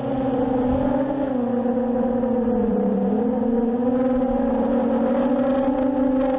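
7-inch FPV racing drone's motors and propellers whining steadily, the pitch sagging a little about three seconds in and climbing back.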